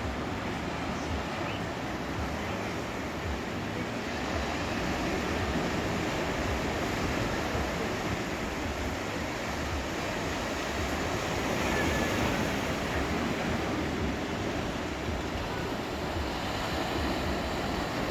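Sea waves breaking and washing up on a beach, a continuous surf noise that swells a little about a third of the way in and again past the middle.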